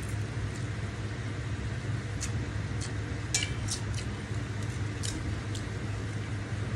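Someone eating fried instant noodles close to the microphone: short wet chewing clicks and smacks several times, over a steady low hum.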